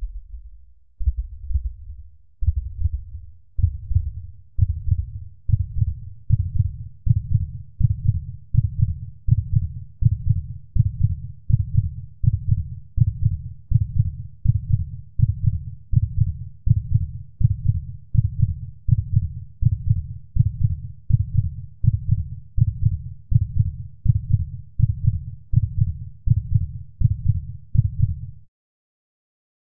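Heartbeat sound effect: low, evenly repeated beats at about one and a half a second, fading in over the first few seconds and cutting off suddenly near the end.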